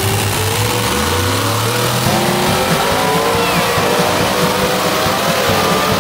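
Pulling tractor's engine at full throttle as it drags the weight-transfer sled down the track. Its pitch climbs from about a second in, then wavers up and down under load.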